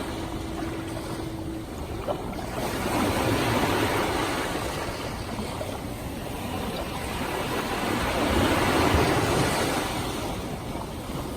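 Ocean waves breaking and washing up onto a sandy beach, the surf swelling twice, a few seconds in and again near the end.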